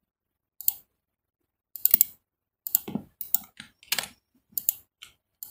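Computer mouse and keyboard clicking: about a dozen short, irregular clicks, some in quick clusters, as points are placed and confirmed in a CAD drawing.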